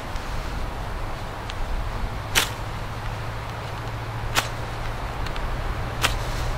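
Three sharp cracks, about two seconds apart, over a steady low rumble of wind buffeting the microphone.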